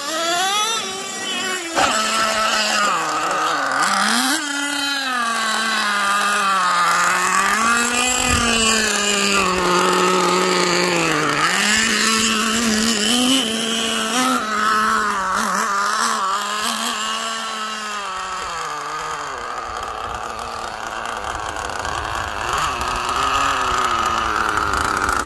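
Small two-stroke engine of a fuel-powered RC truck running, its pitch rising and falling as the throttle is worked, then fading over the last several seconds.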